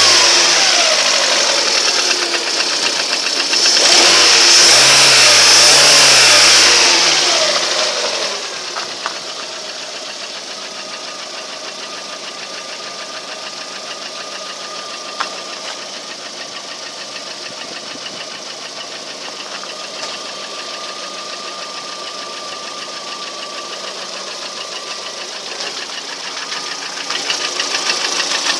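Lada Priora's engine revved up twice, then dropping back to a steady idle about eight seconds in, with a fast rhythmic knock running through it that the owner can't explain.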